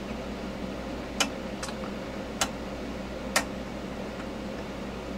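Rotary volts-per-division switch on a Tektronix 2236 oscilloscope being clicked through its detents. Four sharp clicks at uneven intervals sound over a steady low hum.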